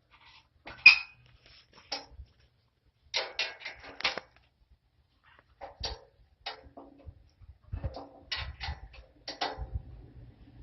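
Sharp metal clicks and clinks, some in quick clusters, as an Allen wrench is fitted to and turns the set screws on the compost turner's steel water rack.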